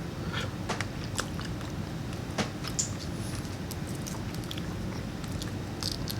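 Close-up eating sounds of boiled peanuts: irregular clicks and wet smacks as the soft shells are split and the peanuts chewed.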